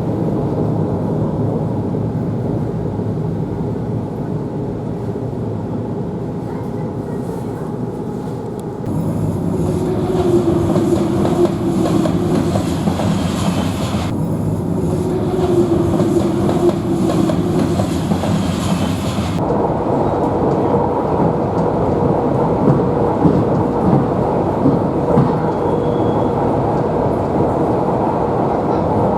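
Electric commuter train (elektrichka) running along the track, heard from inside the carriage as a continuous rumble with some wheel clatter. Its sound changes abruptly about 9, 14 and 19 seconds in, and a humming tone rises over it twice in the middle.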